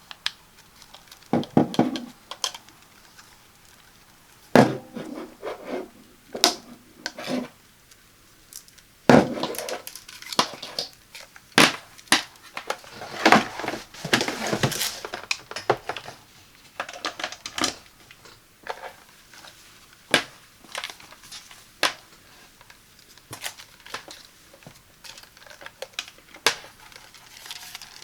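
Hands handling an electric heating pad and its packaging: irregular taps, knocks and clicks mixed with short bursts of crinkling and rustling.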